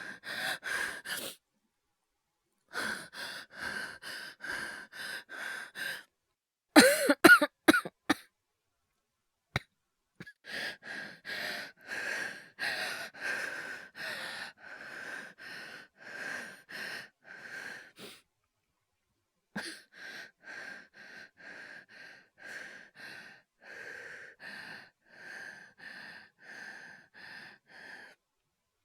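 Acted coughing by a man: runs of short, quick coughs and breaths at about two a second, broken by brief pauses, with a louder fit of harsh coughs about seven seconds in.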